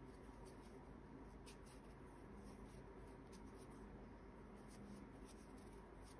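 Faint scratchy rustling of a metal crochet hook working cotton cord through stitches, with small irregular ticks a few times a second over a low room hum.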